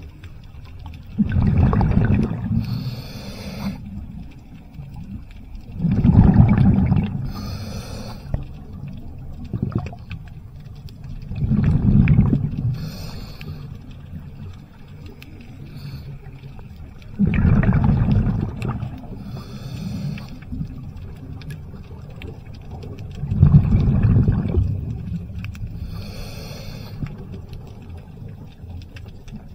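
Scuba diver breathing through a regulator underwater, heard five times: each breath is a low rumble of exhaled bubbles followed by a shorter hiss as the diver inhales, about every five and a half seconds.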